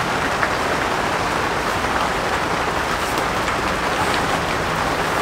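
Steady rain falling on a cotton-blend (TC) canvas tent, heard from inside as an even hiss with faint scattered drop ticks.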